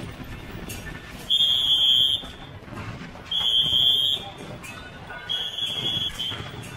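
Three long, steady, shrill whistle blasts about two seconds apart, the last one a little weaker, over the low din of the dragon dance procession.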